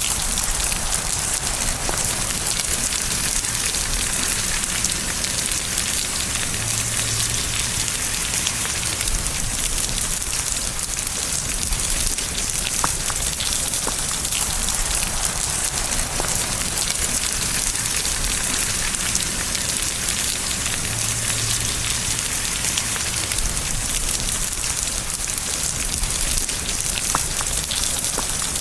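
Steady rain falling: a dense, even hiss with scattered sharp ticks of single drops.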